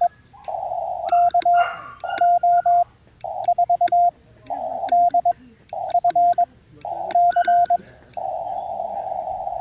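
Morse code (CW) from a QRP ham radio transceiver on 20 metres: quick groups of short high-pitched beeps over narrow-filtered receiver hiss, with the hiss cutting in and out about once a second and light clicks as it switches. Near the end it settles into a steady hiss.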